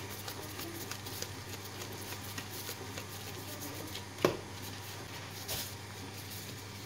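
Faint squishing and handling of soft bread dough by plastic-gloved hands on a granite countertop as a piece is rolled into a ball. A single thump about four seconds in is the loudest sound, and a steady low hum runs underneath.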